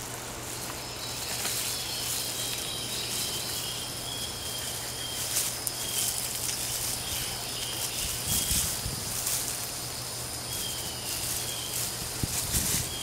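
Hands scratching and rustling through potting soil while digging out potatoes, with faint repeated high chirps of insects or birds and a steady low hum.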